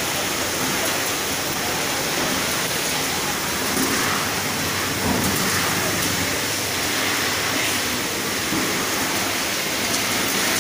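Steady, dense hiss of popcorn-line machinery running, with no clear rhythm or pitch.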